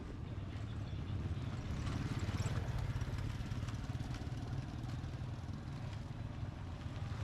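A vehicle engine running steadily as it travels, a low pulsing rumble that swells slightly a couple of seconds in.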